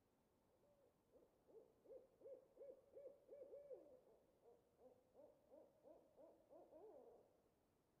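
An owl calling: a faint run of short, wavering hoots, about three a second, lasting some six seconds.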